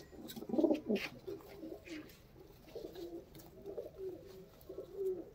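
Several domestic pigeons (Pakistani high flyers) cooing, a low warbling coo repeated again and again, loudest about half a second in. A few faint clicks come between the coos.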